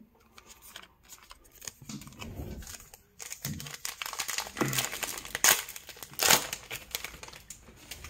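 A baseball card pack wrapper crinkling and tearing as it is ripped open, a run of crackly rustles that is loudest a little past the middle.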